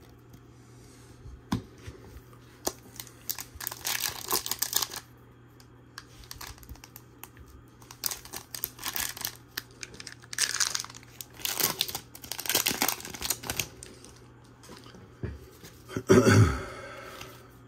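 A foil Disney Lorcana booster pack wrapper being torn open and crinkled by hand, in several separate bursts of crackling. There is a short, louder sound near the end.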